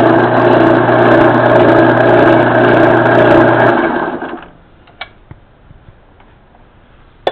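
Craftsman Dunlop 109 metal lathe running on its lower speed with its motor humming and the headstock gears whirring. About four seconds in it is switched off and winds down, followed by a couple of light clicks.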